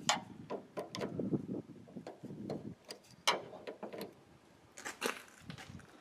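Irregular small metallic clicks and scrapes of a screwdriver and a steel circlip being worked off a van's rear-door lock barrel, with a few sharper ticks standing out.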